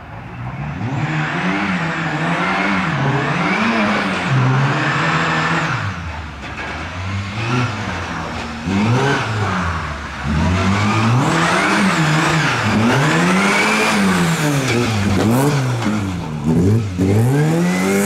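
Lada saloon rally car's engine revving hard, its pitch climbing and dropping again and again through throttle lifts and gear changes as it is driven on a slippery snow course.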